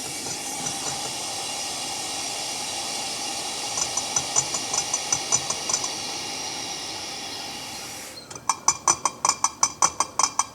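Air hissing steadily back into an evacuated glass jar. The ringing of the sound source sealed inside comes through faintly about four seconds in, as the air returns. Near the end the hiss stops and the ringing is loud and clear, a rapid train of strikes about seven a second: with air back in the jar, sound is conducted again.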